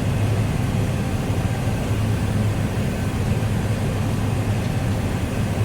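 Combine harvester running while cutting wheat: a steady drone with a strong low hum and no change through the stretch.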